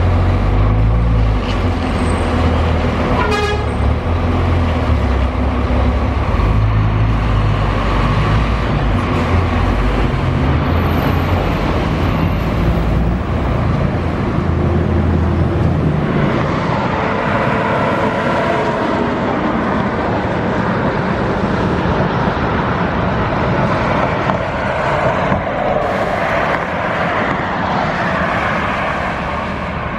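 Scania K400 double-decker coach's rear-mounted diesel engine pulling away under load, its deep note rising and falling in steps, with a brief horn toot about three seconds in. About halfway through the deep engine note gives way to the coach passing at highway speed, mostly tyre and wind noise.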